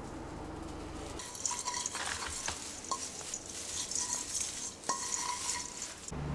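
A low hum stops about a second in. Then come light clinks and taps of a utensil against ceramic or glass dishware, with a few of the clinks ringing briefly, like a spoon stirring in a cup.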